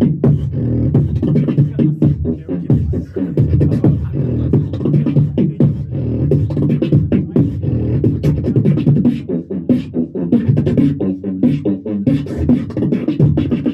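Solo beatboxing into a handheld microphone, amplified through a PA: a held, pitched bass tone runs under rapid sharp clicks and snare-like hits without a break.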